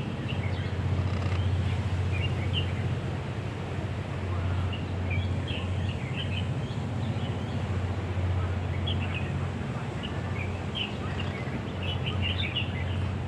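Short, scattered bird chirps, high and faint, over a steady low rumble.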